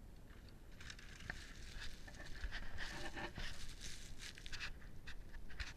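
Downhill mountain bike rolling down a rocky trail over dry leaves and loose stones, crackling and rustling with small clicks and rattles. It builds from about a second in.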